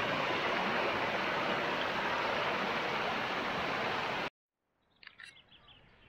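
River water rushing and pouring over a low rocky ledge: a steady, loud rush that cuts off abruptly about four seconds in. A much quieter stretch follows, with a few faint short high sounds.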